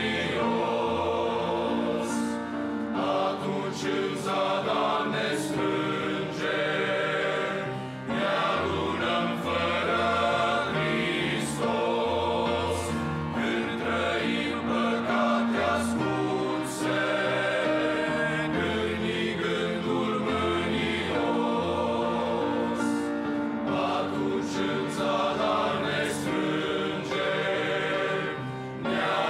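Men's choir singing a Romanian hymn in several parts, with short breaks between phrases about eight seconds in and just before the end.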